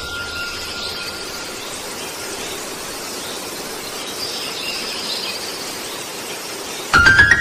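Cinematic intro sound effects: a steady hiss with faint high tones, then a sudden loud hit with a rising tone near the end.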